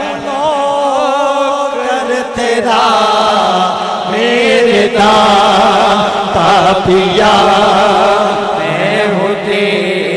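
A man's solo voice chanting a naat. He sings long melismatic phrases with held, wavering notes, pausing only briefly between them.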